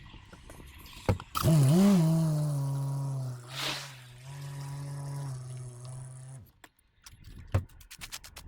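A four-wheel-drive truck's engine started with a click, wavering in pitch as it catches and then running steadily for about five seconds before it cuts off suddenly. A sharp click follows shortly after.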